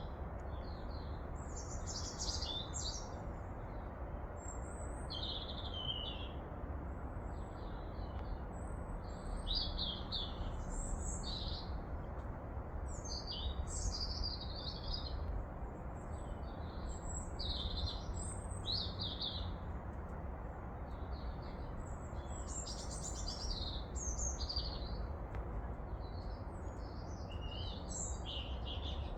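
Birds chirping and singing in short, repeated phrases throughout, over a steady low background noise.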